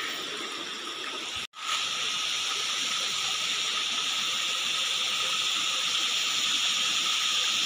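Steady rush of shallow river water flowing over rocks, cutting out briefly about one and a half seconds in and coming back louder.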